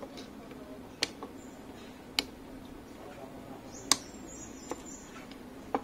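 Cutters snipping the excess leads off soldered components on a circuit board: a handful of sharp clicks, three loud ones and two fainter, spaced about a second apart.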